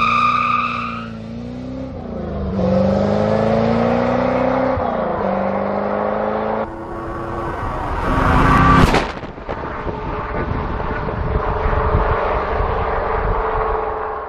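Car engine running and revving, its pitch rising and falling, with a brief loud surge about nine seconds in.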